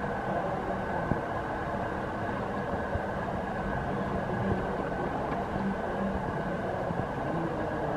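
Model freight train cars rolling steadily along the layout track: a continuous rumble of wheels on rail, with a steady high hum and an occasional small click.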